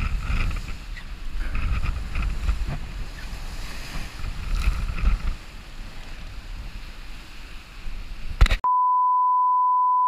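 Wind buffeting the microphone and water rushing past the hull of a Class 40 racing sailboat driving through rough, storm-driven water, rising and falling in gusts. A little past eight seconds in it cuts off abruptly and a steady, single-pitch test-card beep begins.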